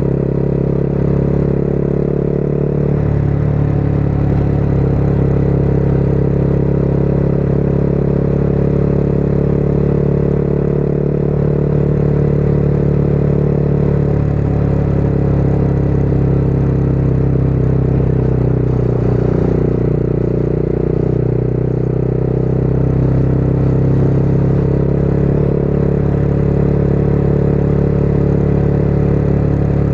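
Motorcycle engine running steadily at cruising speed, its pitch shifting slightly a few times, with wind and road noise under it.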